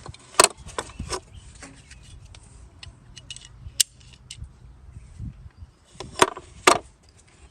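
Ford Mustang II trunk latch mechanism worked by hand, giving a series of sharp metal clicks: a few in the first second, one in the middle and two loud ones near the end.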